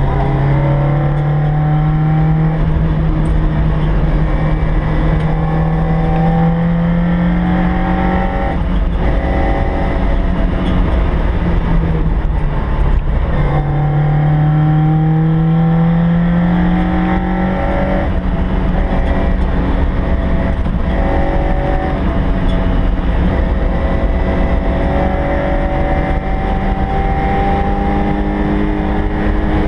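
Toyota AE86's 20-valve four-cylinder engine at racing speed, heard from inside the cabin, its note climbing in pitch under full throttle and dropping back at gear changes and lifts, with two long pulls up through the revs. Steady road and wind noise runs beneath it.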